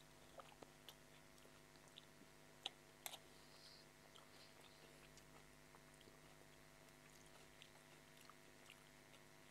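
Faint close-up chewing of a mouthful of chowmein noodles, with scattered soft mouth clicks and two sharper clicks around three seconds in.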